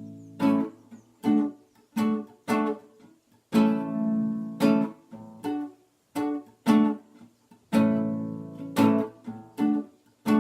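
Acoustic guitar (violão) playing strummed chords in a syncopated rhythm, some chords ringing on and others cut short.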